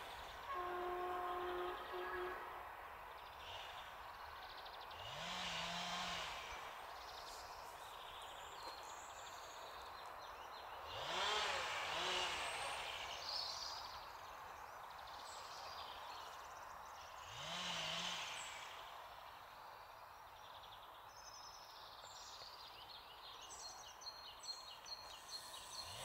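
Class 592 diesel multiple unit running away up the grade into the distance: a faint steady rumble with several louder swells of noise that rise and fall. Birds chirp in the second half.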